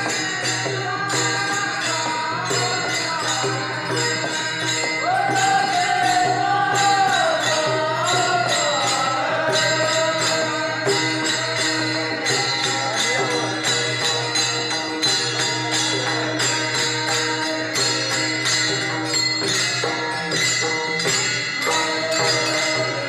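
Varkari-style bhajan: a steady, quick clash of taal hand cymbals with a mridang barrel drum, and men singing the devotional tune, the voices clearest from about five seconds in.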